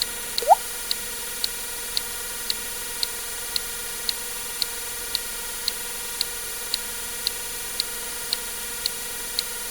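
Water-drip sound effect: one short rising plip about half a second in, over a steady hiss and a faint high tick about twice a second.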